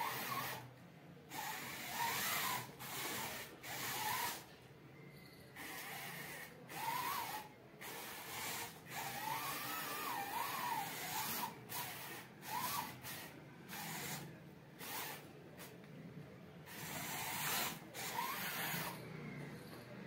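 Small electric gear motors of a homemade PVC-pipe model excavator whirring in many short stop-start bursts, a whine that rises and falls in pitch, as the model drives on its tracks, turns and moves its arm under remote control.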